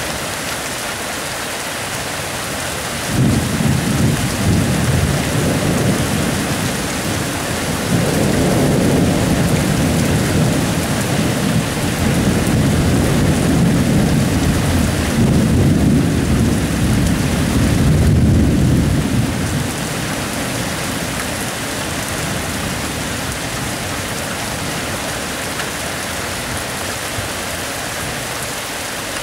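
Steady rain hissing throughout, with rolling thunder: a rumble breaks out about three seconds in, and a longer, louder roll follows from about eight seconds in before dying away around twenty seconds in.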